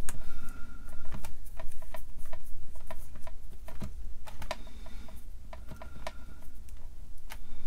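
Plastic wire nut being twisted back and forth by hand on twisted mains wires, giving an irregular run of small clicks and ticks. The nut will not unscrew; turning it only tightens the wires.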